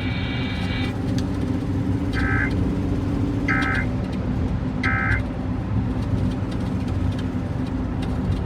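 Hard rain pouring steadily, with three short, identical electronic data bursts about a second and a half apart from a NOAA weather radio. The bursts are the SAME end-of-message code that closes a flash flood warning broadcast.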